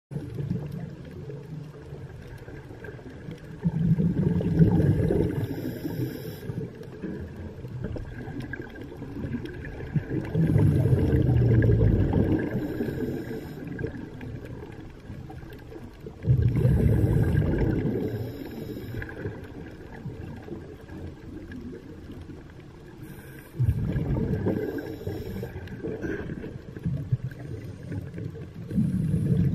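Scuba diver breathing underwater through a regulator: exhaled bubbles surge and gurgle about every six seconds, five times in all, over a steady low underwater background.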